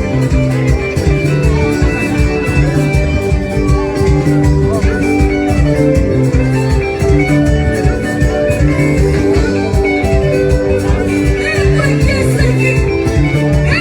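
Band music with guitar, held bass notes and a steady dance beat.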